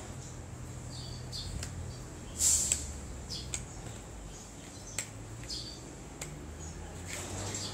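Handling noise from a welding helmet and its packaging: scattered sharp clicks and a brief loud rustle about two and a half seconds in, with short high chirps now and then over a low steady hum.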